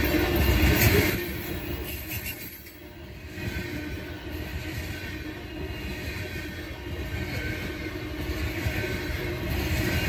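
Freight train of coal hopper cars rolling past: a steady rumble of steel wheels on rail, loudest in the first second, dropping away briefly, then building slightly again near the end.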